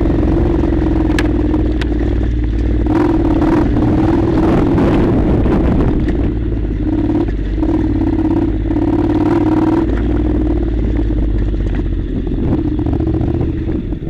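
Honda NC700's parallel-twin engine running steadily as the motorcycle rides over a rough dirt track, with scattered knocks and rattles from the bumps.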